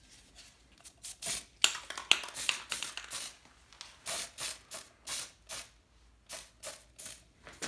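Aerosol spray-paint can fired in short, quick bursts, about two to three hisses a second with brief gaps between, to give a light speckled coat.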